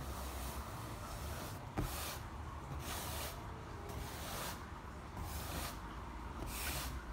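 Hands moving small ceramic pool tiles about on a hard desk: a run of soft swishes every half second to a second, and one sharp click about two seconds in as a tile is set down, over a low steady hum.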